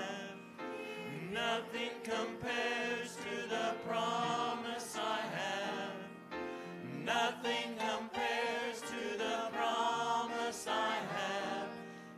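A group of voices singing a Christian worship song.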